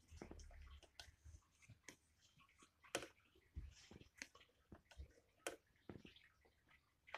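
Faint, scattered clicks and light handling noises as fabric is shifted and repositioned on a Singer 319K sewing machine, with the machine mostly not stitching.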